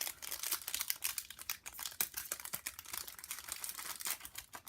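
Trading-card pack being opened and handled: the wrapper crinkling and cards clicking against each other in a fast, continuous run of small sharp rustles and clicks.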